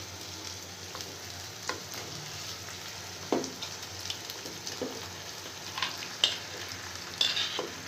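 Yogurt-marinated chicken going into a pan of hot oil-fried masala, sizzling steadily. A metal spoon scrapes and knocks against the bowl and pan several times.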